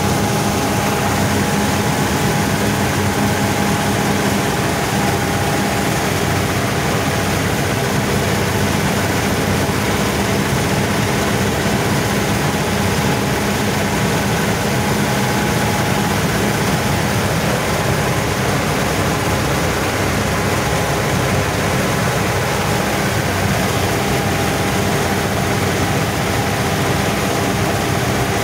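Steady drone of a Władimirec T-25 tractor's diesel engine and the Bizon Z020 combine's cutting and threshing machinery running at a constant speed while harvesting wheat, heard from the driver's seat.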